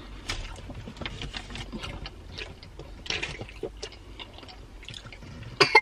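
Close-up mouth sounds of eating and drinking: chewing soft filled waffles and sipping from a drink can, with irregular wet smacks and small clicks.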